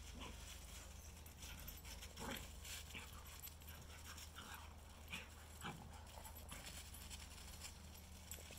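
A Shikoku and a Karelian Bear Dog playing rough on a thawing pond's icy surface: faint scrabbling paws and panting, with a few short, soft dog noises along the way.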